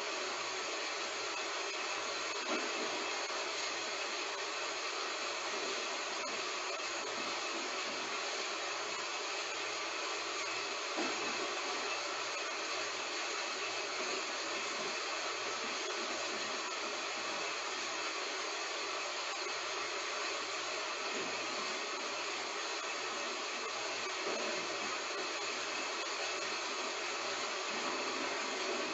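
Heavy rain falling as a steady, even hiss, with a few faint louder drops or patters here and there and no thunder.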